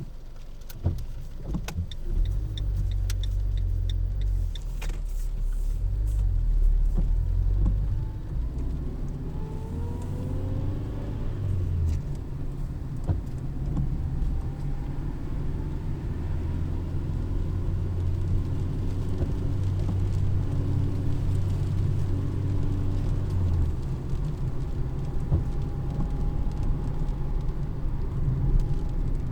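Car driving, a steady low engine and road rumble, with the engine note rising as it speeds up about a third of the way through. A few sharp clicks sound in the first few seconds.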